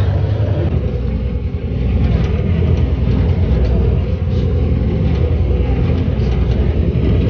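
Cruise boat's engine running with a steady low rumble, mixed with wind on the microphone and the rush of the boat's wake.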